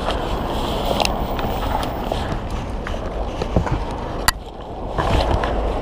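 Handling noise of a backpack being packed close to the microphone: rustling and small knocks, with one sharp click about four seconds in, over a steady low rumble.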